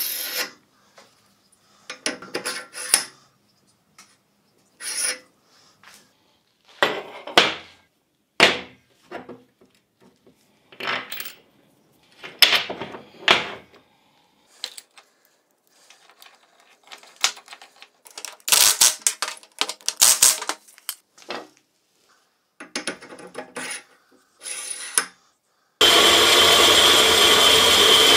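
Steel workshop sounds in short separate bursts, about a dozen in all: metal parts clinking, scraping and being handled. Near the end a power tool starts and runs steadily with a high whine.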